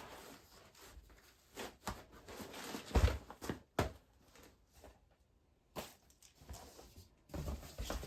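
Camping gear being handled and pushed into a backpack's mesh outer pocket: irregular rustling and a few soft knocks, the loudest about three seconds in, with a brief silence halfway through.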